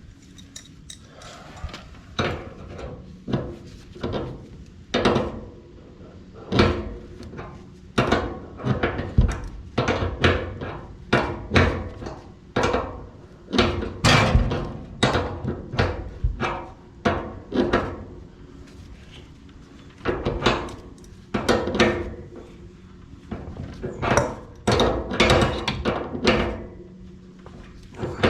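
Irregular metal clanks and knocks, about one or two a second, of hand tools and brass gas fittings being handled and worked on a gas line, over a faint steady low hum.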